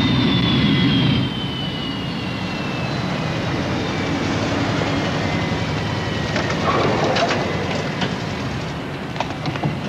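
Jet airliner passing low overhead: loud engine noise that drops away about a second in, with a high engine whine that slowly falls in pitch. A few sharp clicks near the end.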